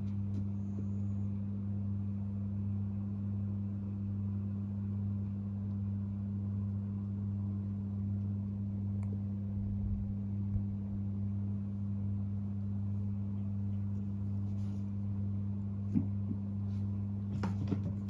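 A steady low electrical hum with an even pitch, and a few faint clicks and taps near the end.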